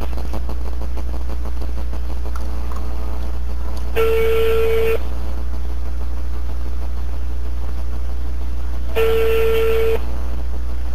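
Telephone ringback tone: a steady beep of about one second, heard twice five seconds apart, over a constant low hum. It is the sign that the called phone is ringing and has not yet been picked up.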